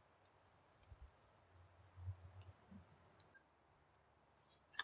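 Near silence, with a few faint, scattered clicks and a brief low rumble around the middle.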